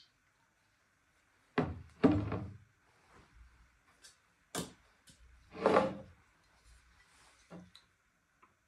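A few separate knocks and thuds as an aluminium cream whipper and a plastic measuring jug are handled and set down on a bar counter, with two loud thuds near the start, a few sharp clicks, and another thud about two-thirds of the way through.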